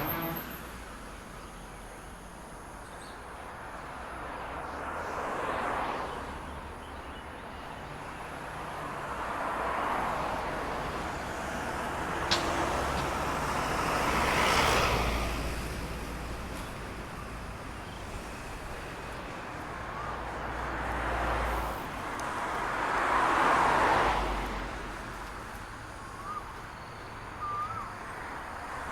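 Road traffic passing by: a steady low rumble with vehicles going past one after another, each swelling and fading over a few seconds. One sharp click comes a little under halfway through.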